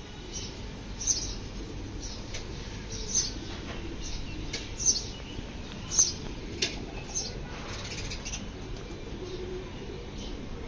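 House sparrow chirping: short, high single chirps repeated irregularly, about every one to two seconds.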